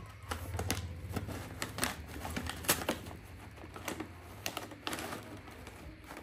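Irregular sharp taps and clicks, about a dozen, as a baby monkey's hands and feet knock against a mirror and a wooden dresser top while it moves about and starts to climb. The loudest tap comes a little under three seconds in.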